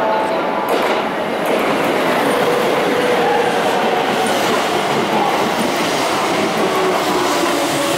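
Keisei electric commuter train moving out along the platform: a steady rumble of wheels on rail, with the whine of its inverter-driven traction motors shifting up and down in pitch.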